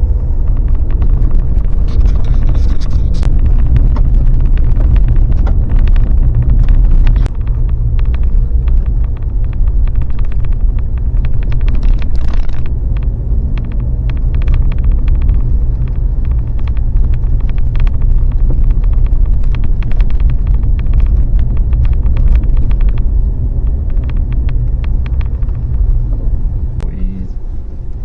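Vehicle driving on a mountain road, heard from inside the cab: a steady low engine and road rumble with many small rattles and clicks throughout.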